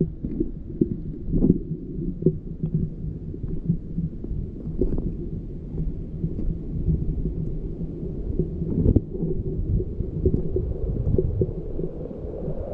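Wind buffeting a body-worn camera's microphone: a loud, gusting low rumble, broken by occasional knocks of footsteps on the stone steps.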